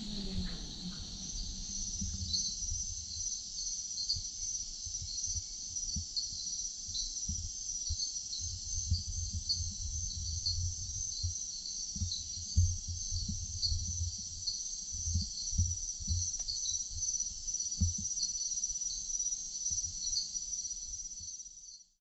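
Rainforest insect chorus: a steady high-pitched buzzing with many short repeated chirps on top, over an uneven low rumble. It cuts off near the end.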